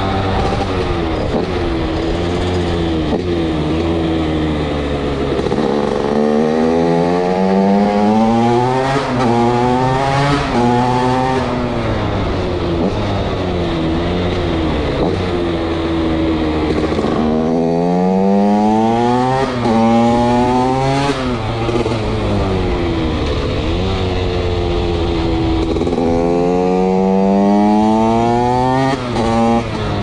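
TM SMR 125 fuel-injected two-stroke supermoto engine, fitted with a Pro Circuit Shorty R304 silencer, accelerating through the gears. Three times the revs climb in quick steps, dropping at each upshift, with steadier, lower running in between.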